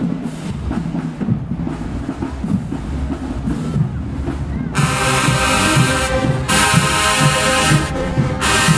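Marching band drumline beating out a low cadence, then the brass section comes in loudly about five seconds in and plays over the drums.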